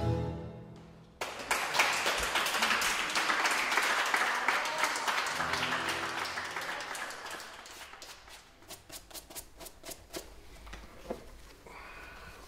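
Tango music ends, and about a second later applause breaks out. The applause is dense at first, then thins to a few scattered claps near the end.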